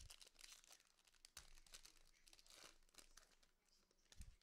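Faint crinkling and tearing of a foil trading-card pack wrapper being ripped open by gloved hands, with a couple of low thuds, one at the start and one near the end.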